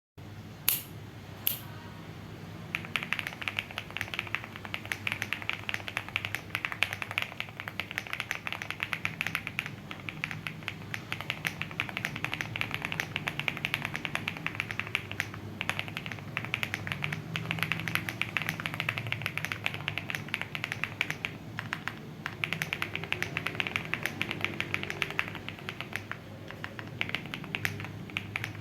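Qwertykeys QK65 R1 gasket-mount keyboard with an FR4 plate and lubed Gateron x Swagkeys Pure Sky switches being typed on. Two single sharp keystrokes come first, then fast continuous typing from about three seconds in, broken by a few short pauses.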